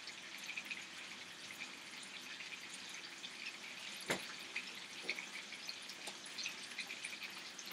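Chicken thighs frying gently in bacon fat in a nonstick pan on low heat, giving a faint, steady patter of small crackles and pops. One sharper pop comes about four seconds in.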